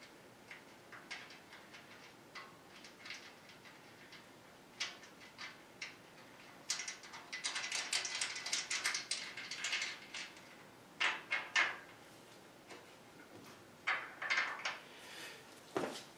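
Scattered metallic clicks and knocks of bolts and hand tools as a sheet-metal lathe chip tray is fastened to its brackets, with a dense run of quick ratcheting clicks about seven to ten seconds in.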